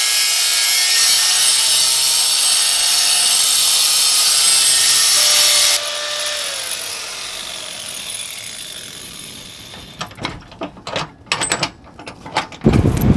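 Power tool cutting a metal washer to shape, a loud high whine over a grinding hiss. It is switched off about six seconds in and winds down with a falling tone, followed by a few clicks and knocks near the end.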